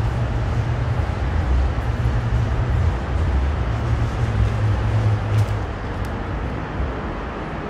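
Steady road traffic noise from passing cars: a continuous hiss over an uneven low rumble, easing slightly near the end.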